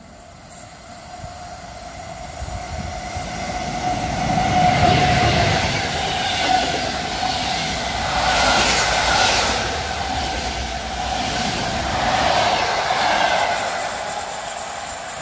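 PKP Intercity passenger train passing through the station at speed: the rumble of its wheels on the rails builds over the first few seconds as it approaches, stays loud with a rushing, rattling sound as the coaches go by, and eases near the end as the last coach pulls away.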